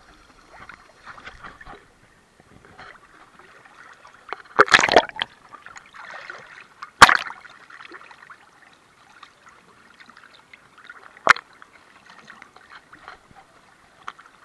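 Seawater sloshing and gurgling against a camera held at the surface as it dips under and comes back up, with a muffled underwater crackle. There is a loud splash about four and a half seconds in, and sharp knocks at about seven and eleven seconds.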